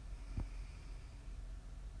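Quiet pause between a sleeping woman's snores: only a faint low hum, with one soft click about half a second in.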